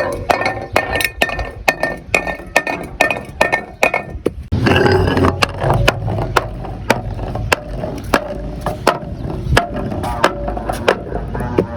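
Glass bottles knocking and clinking as they roll down stairs: a run of sharp hits, two or three a second, with a low rumble joining about four and a half seconds in.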